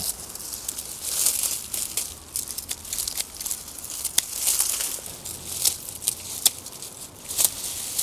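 Spent pea vines rustling and crackling as they are pulled off a wire trellis, in uneven swells with a few sharp crackles.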